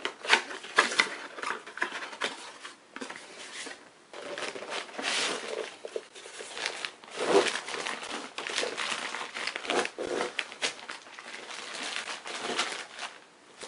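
Unboxing: a cardboard box flap being pulled open and a plastic-bagged tripod slid out of the box, the plastic crinkling and rustling with sharp clicks in an irregular stream throughout.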